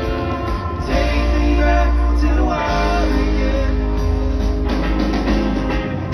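Live rock band playing through a large PA, heard from within the crowd: electric guitars with a bending note a little after two seconds in, drums and heavy bass.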